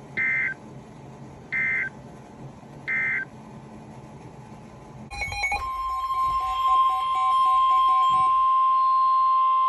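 NOAA Weather Radio alert signals: three short warbling bursts of SAME digital code, about a second apart, marking the end of a message. A little over five seconds in, a steady, loud single-pitch alarm tone near 1 kHz begins with some beeping alongside it: the 1050 Hz weather radio warning alarm tone that announces a new warning.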